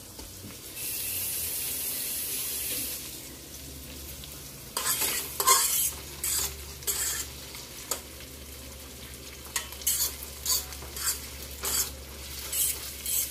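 Chopped onions frying in a skillet, sizzling as they are stirred around the pan, with a string of short scraping strokes from about five seconds in. A steady hiss runs for about two seconds near the start.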